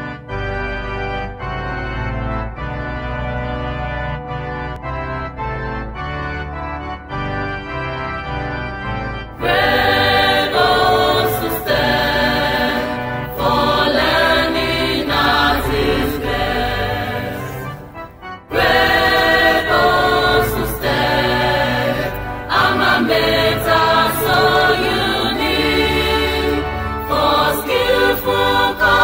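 University anthem: an organ plays a slow introduction of held chords over a bass line, then a choir comes in singing with the accompaniment about nine seconds in, breaking off briefly near the middle before carrying on.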